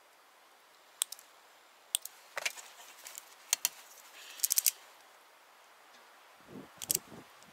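Hand wire pliers clicking and snipping on electrical wire: single sharp clicks about a second apart, then a quick cluster of clicks about four and a half seconds in, and a few duller knocks near the end.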